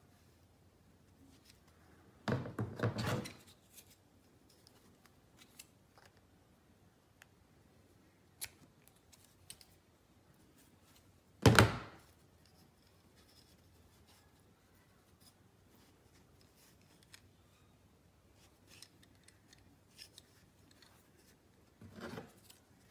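Hands handling a perforated plastic tube and a sheet of foam: a cluster of rustles and clicks about two seconds in, one sharp knock around the middle, and a shorter rustle near the end, with faint ticks between.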